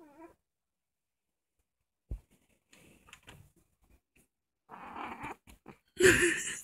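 A short cat meow right at the start, then a single dull thump about two seconds in, faint rustling and scraping, and a louder burst of rustling near the end.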